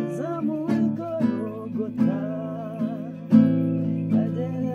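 Acoustic guitar being strummed, with a man's voice singing along over the chords.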